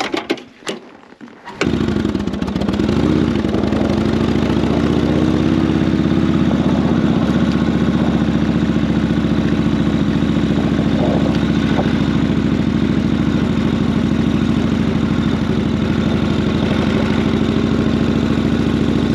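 A few clicks and knocks, then, about a second and a half in, the 1942 Harley-Davidson WLA's 45 cubic inch flathead V-twin running steadily as the motorcycle is ridden.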